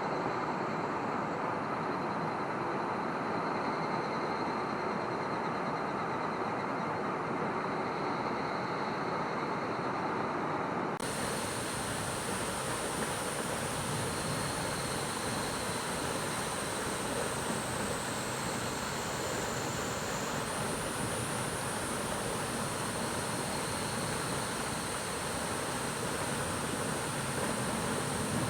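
Steady rushing of a mountain stream's flowing water. About eleven seconds in, the sound changes abruptly and becomes brighter, with a thin, high, steady whine on top.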